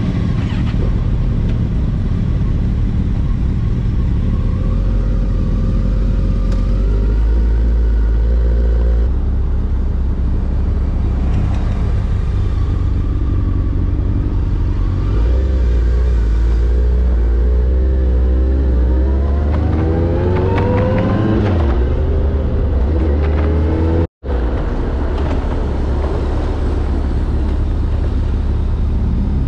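Motorcycle engines running as a group of riders pulls away and rides off. The camera bike's engine revs up through the gears several times with rising pitch, the climbs clearest about two-thirds of the way through, over a steady heavy low rumble. A sudden dropout marks a cut.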